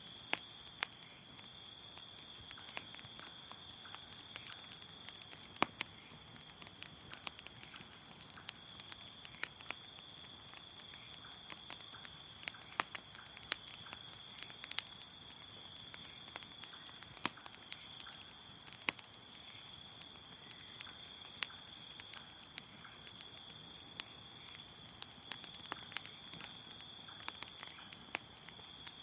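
Crickets chirping in a steady high trill, with a bonfire crackling: sharp pops at irregular intervals, a few seconds apart or less.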